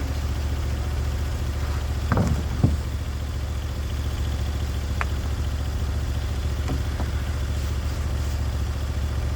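Sawmill's engine running steadily with a constant low hum. A couple of short, sharp clanks come about two seconds in.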